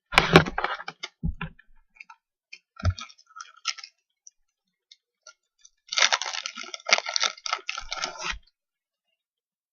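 Basketball trading cards and their pack being handled close to the microphone: quick dry clicking and crinkling. It comes in a dense burst at the start, scattered clicks follow, and a second long busy stretch comes about six seconds in.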